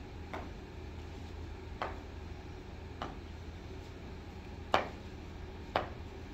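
Five sharp snaps at uneven intervals, the loudest about three-quarters through, from the cotton taekwondo uniforms cracking as two children punch and kick through a pattern, over a low steady hum.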